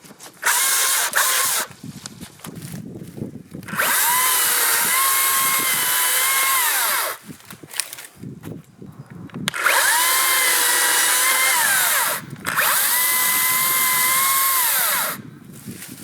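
Makita brushless electric chainsaw running in four bursts, one short and three of about three seconds each. Each burst has a steady motor whine that rises as the chain spins up and falls away as it stops, with quieter crackling between the bursts.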